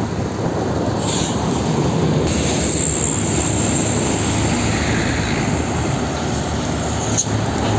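Heavy trucks passing close by on a highway: diesel engines running and tyre noise on asphalt, a steady, loud traffic sound.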